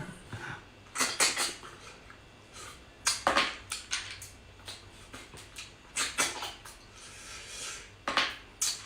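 Close-miked eating of spicy shellfish: four short bursts of slurping and sucking, about two to three seconds apart.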